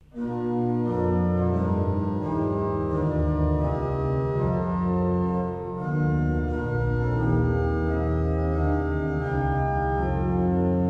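Pipe organ playing slow, full held chords over a deep bass, the chords changing every second or two.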